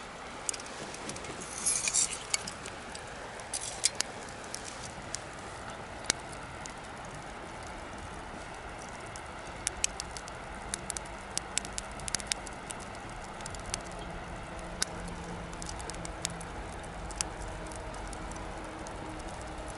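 Wood bonfire crackling: sharp pops and snaps over a steady hiss, with a dense cluster of crackles about two seconds in and another run around ten to thirteen seconds. In the second half a faint low hum comes up underneath.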